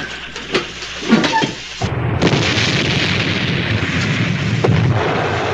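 A few knocks, then about two seconds in a sudden loud, steady rush of air with a low rumble underneath: a submarine blowing its forward ballast tank with compressed air to surface.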